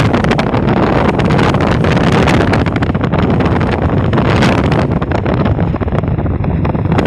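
Bus on the move: a loud, steady rumble of engine and road noise.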